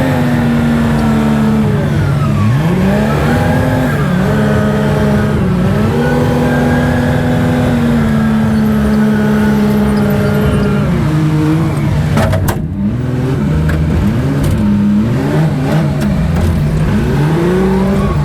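A vehicle engine revs up and down again and again over a steady low drone, with a short sharp click about two-thirds of the way through.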